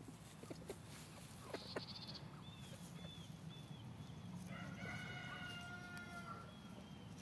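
Free-range chickens foraging, with a few light ticks and small chirps, then a rooster crowing once about four and a half seconds in, a long held call of nearly two seconds, heard faintly over a steady low rumble.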